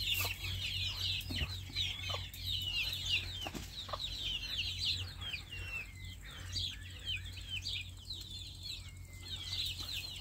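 Flock of young chickens peeping and chirping, many short high calls overlapping one another, over a steady low hum.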